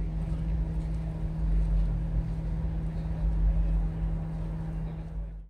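A motor running steadily, a constant low hum over a deep, uneven rumble.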